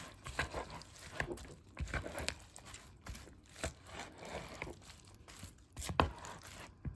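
Shredded lettuce, onion and banana peppers being stirred together with a creamy dressing in a bowl: irregular crunching and scraping strokes, with a sharper knock near the end.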